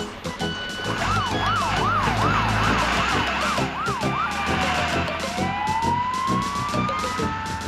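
Fire engine siren wailing quickly up and down over a low engine rumble, then sliding down and back up in one long sweep, with music underneath.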